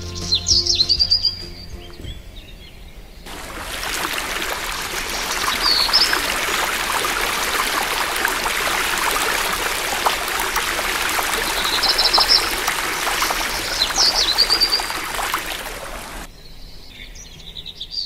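Small birds chirping in short, high calls. About three seconds in, a steady rush of water noise comes in abruptly, with the birds still calling through it, and it cuts off abruptly a couple of seconds before the end, leaving only birdsong.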